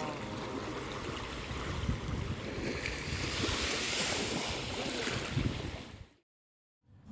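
Sea surf washing in with wind on the microphone, the rush swelling louder about halfway through, then cutting off abruptly near the end.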